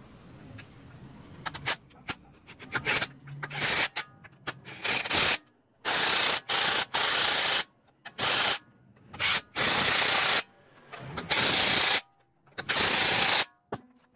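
A brake part being sanded or scrubbed by hand, a series of abrasive rubbing strokes. The strokes are short and scattered at first, then become longer and louder, about half a second to a second each with brief pauses between.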